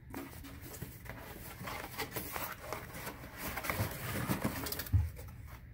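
Vinyl records and their packaging being handled during an unboxing: continuous rustling and crinkling with soft knocks, and a dull thump about five seconds in.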